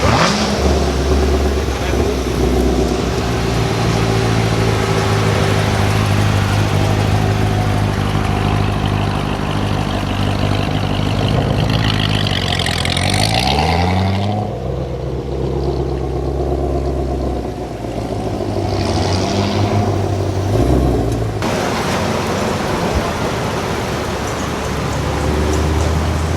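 Car engine running while driving, its pitch holding steady for long stretches and dipping then rising again about halfway through as the revs change.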